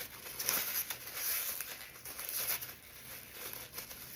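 Someone chewing food close to the microphone: crackly, uneven eating noises, busiest in the first few seconds and then easing off.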